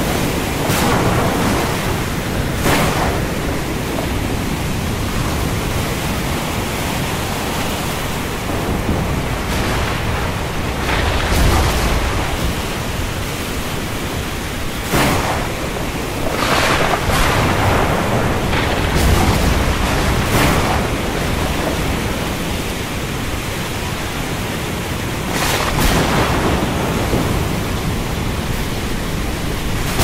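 Thunderstorm: a steady, heavy hiss of rain broken by several sharp thunder cracks, with low rolling rumbles in the middle.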